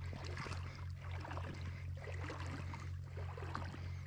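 Water lapping and gurgling against a camera held at the creek's surface, swelling and easing about once a second, over a steady low hum.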